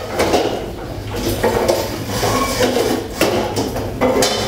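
Classroom bustle: school chairs and desks knocking and scraping as students get up and move around them, with several sharp knocks.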